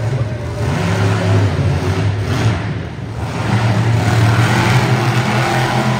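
Monster truck engine revving hard, easing off about halfway through and then climbing again.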